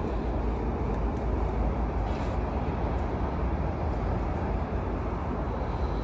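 A steady low rumble of outdoor background noise with no distinct events.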